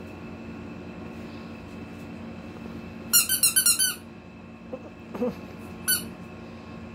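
Yellow rubber duck squeak toy squeezed by hand: a quick run of about six high squeaks, then a single squeak a couple of seconds later.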